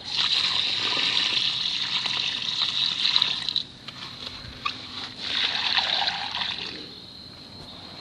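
Water poured from a plastic bucket onto soil and plants, splashing and trickling in two pours: a longer one of about three and a half seconds, then a shorter one about five seconds in.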